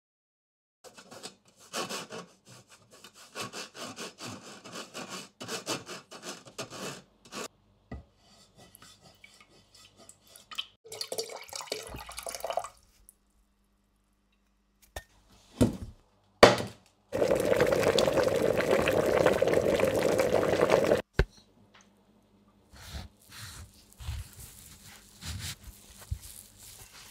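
Kitchen work sounds: red purée strained through a steel mesh strainer into a steel saucepan with rhythmic scraping strokes, two sharp knocks on the pan, then a loud steady hiss for about four seconds that starts and stops abruptly. Near the end, light knocks of a knife on a wooden cutting board.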